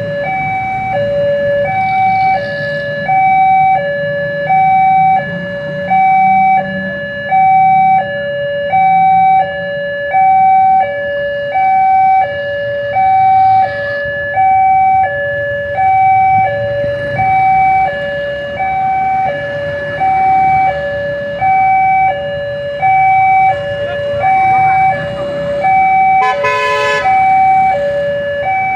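Railway level-crossing warning alarm alternating steadily between a higher and a lower electronic tone, about two-thirds of a second each, signalling that a train is approaching. Road traffic runs underneath, and a short horn blast sounds near the end.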